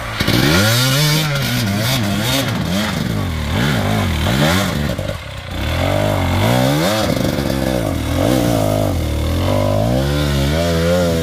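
Enduro dirt bike engine revving up and down over and over as the bike is worked up a steep, rocky climb. The pitch rises and falls about once a second, with a brief easing-off about five seconds in.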